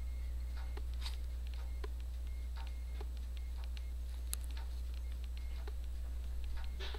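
Light, irregular ticks, about three a second, as a toothpick pricks holes through soft bread dough onto the lined baking tray, over a steady low electrical hum.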